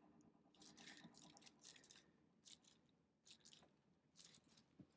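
Near silence with several faint, brief rustles, like hands or clothing shifting against the treatment table during neck traction.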